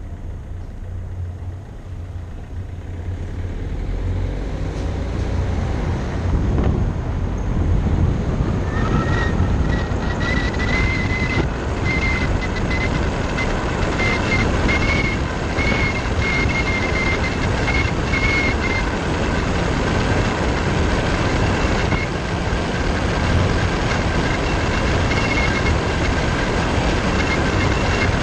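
Wind rushing over a GoPro Hero Session mounted on the outside of a moving car's windshield, with a low road rumble underneath, growing louder over the first several seconds as the car speeds up. About nine seconds in a high, wavering whistle joins and comes and goes; it comes from the camera sitting too close to the upper end of the windshield.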